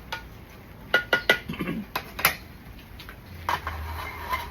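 Metal utensil clinking and knocking against a cooking pot: a quick cluster of sharp strikes with short metallic ringing about a second in, and one more strike a second later.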